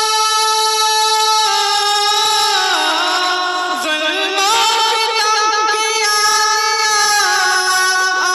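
A man singing solo into a microphone. He holds a long high note, then his voice drops and winds through quick ornamented runs up and down.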